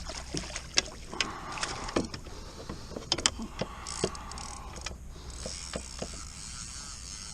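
Irregular knocks, clicks and clatters in a small fishing boat as a freshly netted fish and the landing net and tackle are handled, over a low steady hum.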